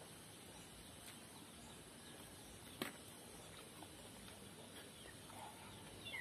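Near silence with faint steady hiss, and a single light click about three seconds in from an oyster shell being handled.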